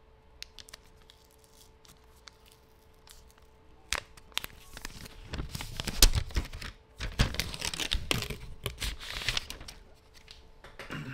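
Paper phone packaging being torn and crumpled by hand: a few light clicks, a sharp click about four seconds in, then several seconds of tearing and rustling, loudest about six seconds in.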